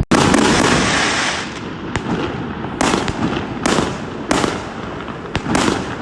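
Fireworks going off all around: a dense crackle at first, then separate sharp bangs about once a second.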